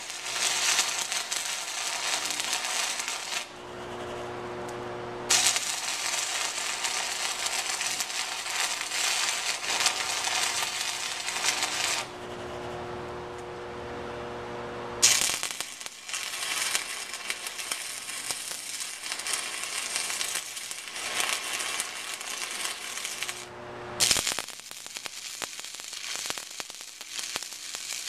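Stick welding with 6011 rod: the arc crackles and sizzles in four long runs, each struck with a sharp snap, broken by short pauses. In the pauses a steady hum is left.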